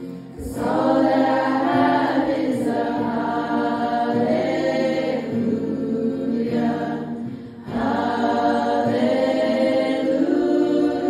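Choir singing long held chords, with a short break about two-thirds of the way through.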